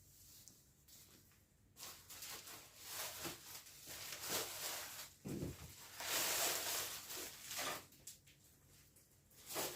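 Packaging being handled and unwrapped, with irregular rustling that is loudest about six to seven seconds in.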